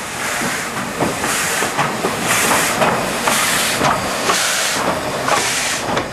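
Ex-Great Central Class 8K (LNER O4) 2-8-0 steam locomotive 63601 passing close by at low speed. Its exhaust and open cylinder drain cocks give a rhythm of loud hissing chuffs, about two a second, with sharp clicks from the wheels on the rails.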